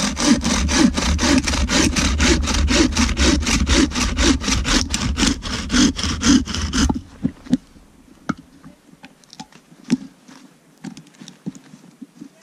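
Bow saw cutting through a dry log in fast, even strokes, about four a second. The sawing stops about seven seconds in, leaving only a few faint knocks.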